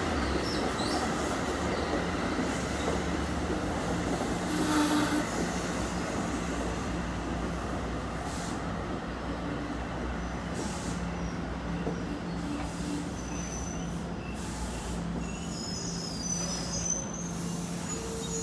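NJ Transit commuter train moving along the station track: a steady rumble of wheels on rail under a low hum, with faint high wheel squeal near the end.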